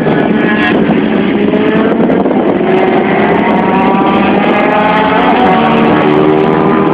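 Several racing motorcycle engines revving hard at once, their pitch rising and falling as the bikes accelerate through a turn and pass by.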